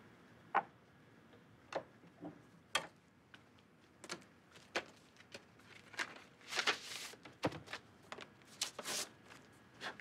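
Handling noise at a gramophone: scattered light clicks and knocks, then two brief dry rustles, about six and a half and nine seconds in, as a vinyl record is slid out of its paper sleeve.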